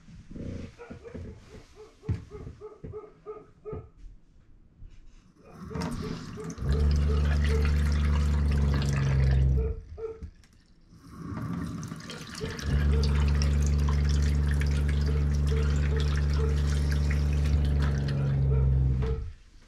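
Bathroom faucet turned on twice, water running into an RV sink for about three seconds and then about six seconds, each time with a steady low hum under the water. Light ticking in the quieter stretches before and between.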